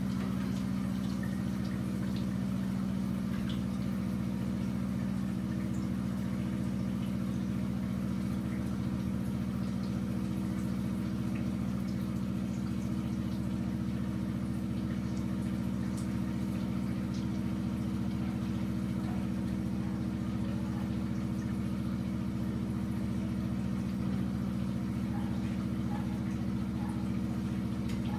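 A steady low machine hum, unchanging throughout, with a few faint light ticks as potatoes are sliced with a knife over a bowl.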